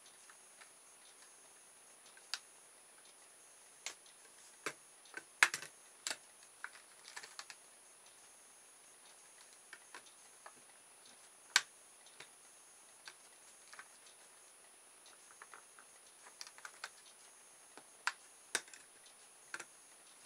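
Irregular sharp clicks and light scratching of a pair of dividers' steel points scribing a circle into thin clear plastic packaging, with the loudest clicks about five and a half and eleven and a half seconds in.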